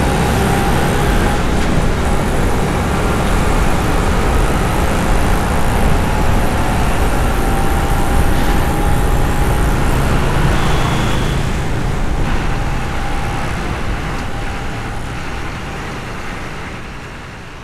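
City street traffic: a steady mix of vehicle engines and tyre noise with faint wavering engine tones, fading out over the last few seconds.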